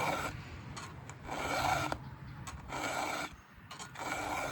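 Round chainsaw file rasping across the cutter teeth of a Stihl MS 500i's chain, sharpened by hand. There are four strokes, about one every second and a half.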